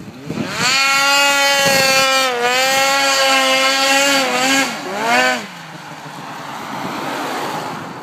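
Polaris 800 RMK two-stroke twin snowmobile engine revved hard under full throttle as the sled launches with its skis lifted: a high, steady engine wail held for about four seconds. Around five seconds in the revs fall, rise once more briefly and drop off, and the engine fades as the sled pulls away.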